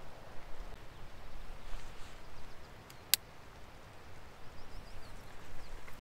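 Tent being pitched: nylon fabric rustling as a tent pole is clipped to the inner tent, with one sharp plastic click about three seconds in. A few faint high chirps come a little before the five-second mark.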